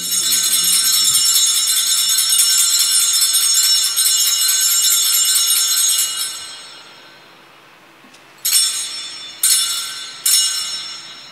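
Altar bells ringing for the elevation of the chalice at the consecration. They jingle continuously for about six seconds and die away, then ring three separate times near the end, each ring fading.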